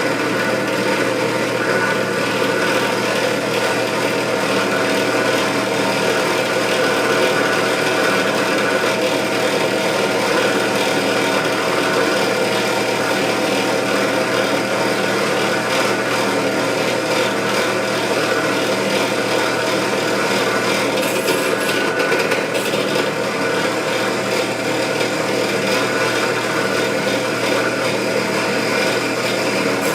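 Electric drill running steadily with a constant motor whine, its bit cutting a hole into a metal scope ring mount to take a bolt as a stop pin.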